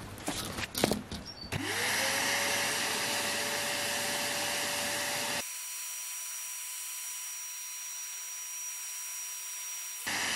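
Vacuum cleaner switched on after a few handling clicks, its motor whine rising as it spins up and then running steadily as it sucks through a homemade separator. About halfway through, the sound changes abruptly to a thinner hiss with a high, steady whistle.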